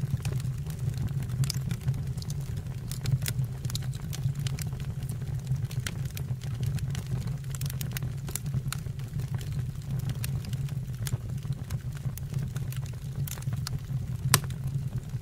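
Wood fire burning in a fireplace or stove: a steady low rumble with scattered crackles and sharp pops of the burning wood, one louder pop near the end.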